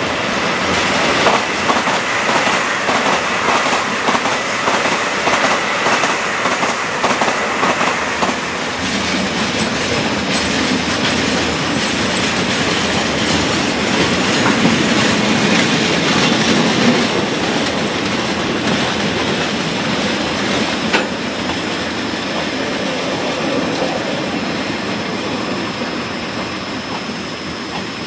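Freight train of hopper wagons rolling slowly past as it pulls out of a station, its wheels clicking over the rail joints for the first several seconds. Then comes a steadier rolling rumble with one sharp click, fading near the end as the last cars go by.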